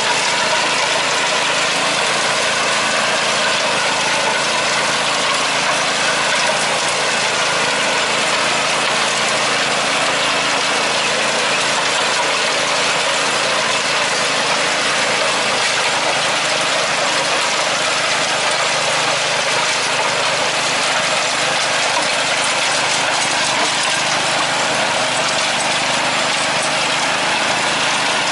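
Garden tractor engine running steadily under load, driving a PTO-powered rear rotary tiller that churns through garden soil: an even, dense mechanical noise over the engine's steady note, unchanging throughout.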